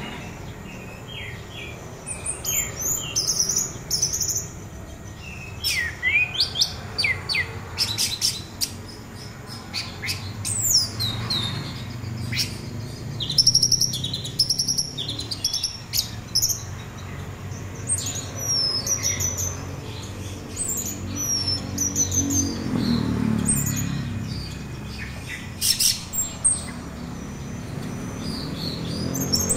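Orange-headed thrush singing: a string of varied high whistled phrases with quick chattering notes, in the rapid 'trotol' style that keepers use to get other thrushes to answer. A low hum runs underneath and swells briefly near the end.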